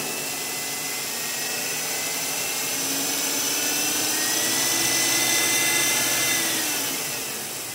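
Ford Taurus engine revved gently by hand at the cable-operated throttle body. Its pitch and loudness rise slowly over a few seconds, hold briefly, then fall back toward idle near the end.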